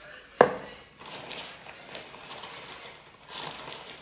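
A wire whisk stirring flour into a wet egg-and-oil bread dough base in a bowl, an uneven scraping and swishing, with one sharp knock about half a second in.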